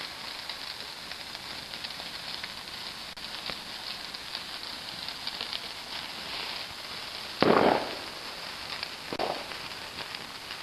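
Garden fireworks fizzing and crackling with many small pops, then a loud burst about seven seconds in and a smaller one about a second and a half later.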